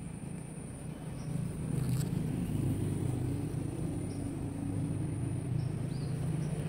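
A vehicle passing on the concrete road bridge overhead: a low rumble that builds about a second in and holds. A steady high insect trill runs underneath.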